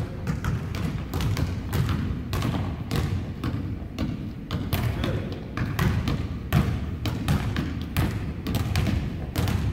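Several basketballs being dribbled on a hardwood gym floor: many irregular, overlapping bounces with no steady rhythm.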